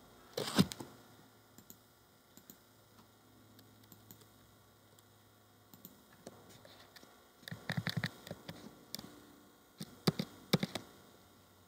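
Computer keyboard and mouse clicks: a couple of clicks about half a second in, a quick run of key presses around eight seconds in, and a few sharper clicks near the end.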